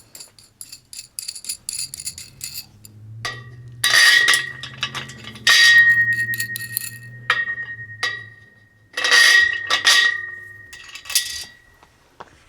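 Metal hooks and hardware knocking against the metal frame of a kayak rack: a string of sharp clanks, several of them leaving a steady bell-like ringing that hangs on for a second or more.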